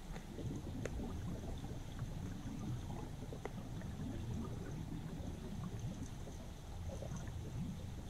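River current heard underwater: a steady low rumble and gurgle of flowing water, with a few faint clicks.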